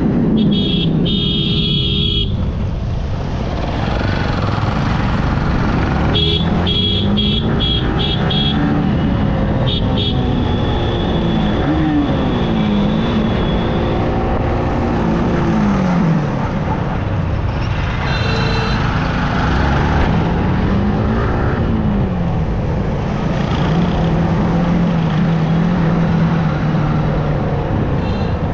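Yamaha R15's 155 cc single-cylinder engine running under way, its pitch rising and falling again and again with throttle and gear changes, over a steady rush of wind and road noise. Vehicle horns beep in short repeated toots a few times in the first ten seconds.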